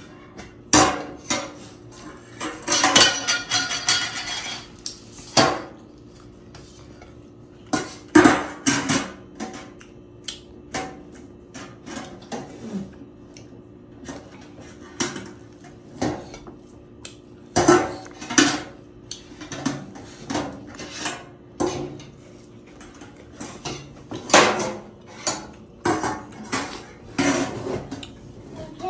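Close-up eating sounds: a run of short, sharp crunchy clicks and crackles from biting and chewing fried food eaten by hand, mixed with small knocks against ceramic plates. There is a denser stretch of crackling about three seconds in.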